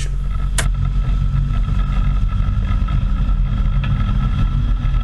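Motorboat engine running steadily at speed, a low drone with water rushing past the probe arm. A single sharp knock about half a second in.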